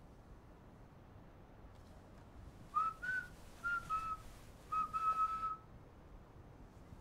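A person whistling a short phrase of about six notes, starting nearly three seconds in and ending on a longer held note.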